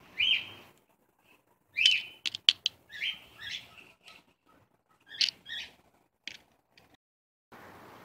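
Flathead screwdriver stirring wet plaster of paris and sand in a plastic cup: short scraping squeaks, with a quick run of sharp taps against the cup a little past two seconds in.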